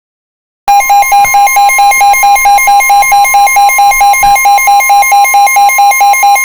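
NOAA Weather Radio's steady 1050 Hz warning alarm tone, signalling that a warning is about to be read. Over it an electronic alarm beeps rapidly at a lower pitch, about four beeps a second, as from a weather radio receiver's alert. It starts suddenly under a second in and is very loud.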